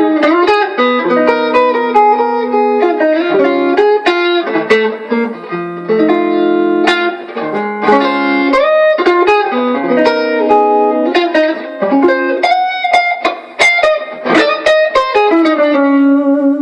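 Electric guitar, a Squier Stratocaster on its stock Alnico 5 single-coil pickups, played through an amp: a steady run of picked single notes and chords with sharp attacks and short ringing decays.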